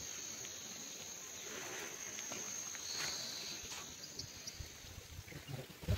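Insects chirring in a steady high-pitched drone, with a few faint clicks. Low buffeting gusts start near the end.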